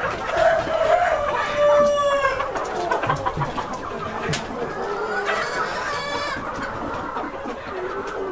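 White Sultan chickens clucking and calling, with a rooster crowing in one long call during the first two seconds.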